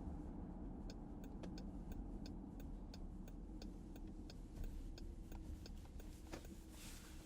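Inside the cabin of a 2018 Dodge Durango R/T, the turn-signal indicator clicks about three times a second over the steady low rumble of the engine.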